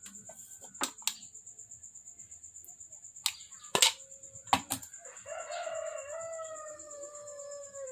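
A rooster crows once in the second half: one long call that sags slightly in pitch. Earlier come about five sharp clicks and taps, the loudest about four seconds in.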